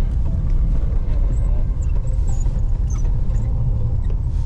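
Car running, a steady low rumble of engine and road noise.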